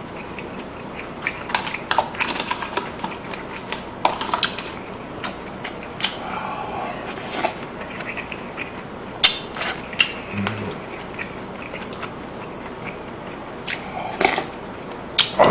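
Close-up eating sounds: chewing and slurping, with scattered sharp clicks of a plastic spoon against a plastic cup and containers.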